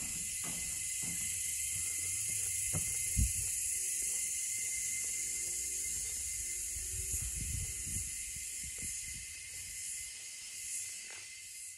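Steady high-pitched hiss of an insect chorus, with dull thumps of footsteps on the hide's wooden floor and one louder knock about three seconds in.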